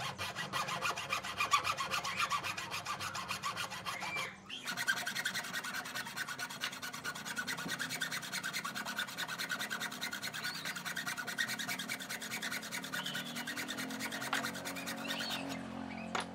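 Hacksaw cutting into the end of a wooden hammer handle held in a bench vise: fast, even back-and-forth rasping strokes, with a short pause about four seconds in, stopping just before the end.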